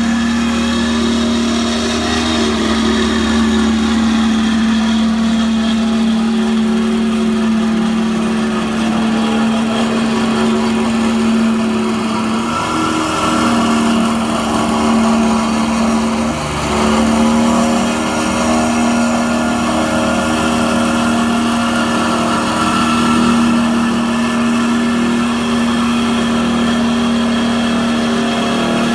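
Walk-behind double-drum roller's small petrol engine running steadily under load as the roller is pushed across bare soil, with a constant hum that briefly dips twice about halfway through.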